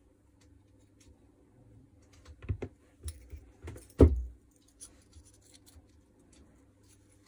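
Metal parts of a Makita 4329 jigsaw being handled on a workbench: light clicks and scrapes, a few knocks, and a loud thump about four seconds in as the armature is set down.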